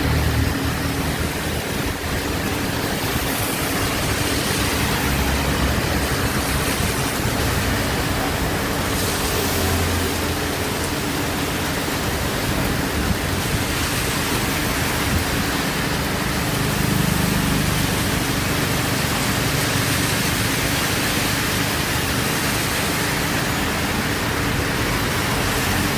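Heavy rain falling: a steady, even hiss, with faint low rumbles now and then.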